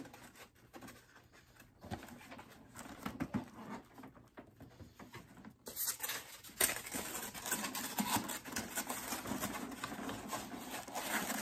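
Cardboard gift box being handled: rustling, scraping and light taps of the box's cardboard flaps and inserts as they are moved and pushed back in. The handling grows busier a little past halfway.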